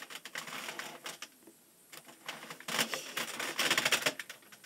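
Putty being pressed by a hand and pulled off it, making sticky crackling clicks in three bursts with quieter gaps between.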